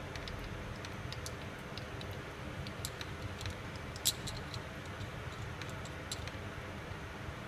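Small light metallic clicks and ticks of steel wheel parts being handled and seated together during assembly of a wireline conveyance wheel, with one sharper click about four seconds in. A steady low hum runs underneath.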